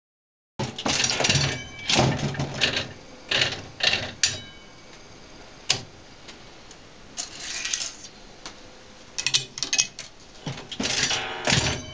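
Aristocrat Arcadian 65 slot machine's mechanism clattering and clunking in repeated bursts of clicks with a metallic ring, starting about half a second in.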